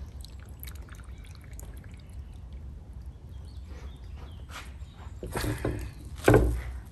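A large roast beef joint lifted on a carving fork out of its foil, with faint drips of juice and crinkles, then set down heavily on a wooden carving board with one dull thump near the end.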